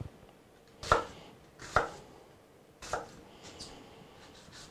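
Kitchen knife chopping an onion on a cutting board: three firm knocks about a second apart, then a couple of lighter taps.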